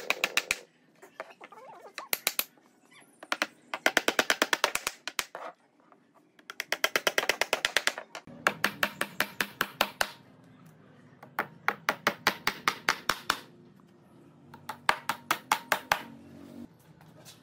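Claw hammer driving nails into a pine board, in quick runs of sharp ringing blows, about six bursts with short pauses between. A low steady hum comes in about eight seconds in.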